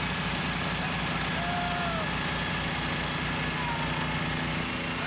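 Small engines of a mini excavator and a mini skid steer running steadily under load, with a fast low pulsing, as the two machines pull against each other on a chain.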